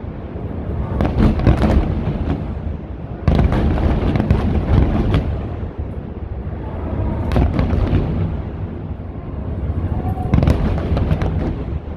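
Large aerial fireworks bursting in a rapid barrage: crackling bursts every couple of seconds over a continuous deep rumble of booms echoing.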